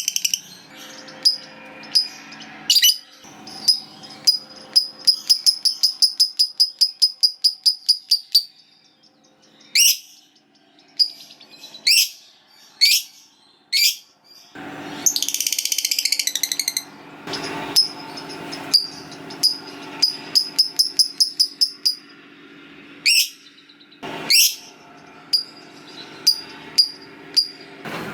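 Lovebird (Agapornis) chattering in the long 'ngekek' style: fast runs of sharp, high repeated notes, several seconds each, broken by single shrill calls and a harsh, noisy screech in the middle.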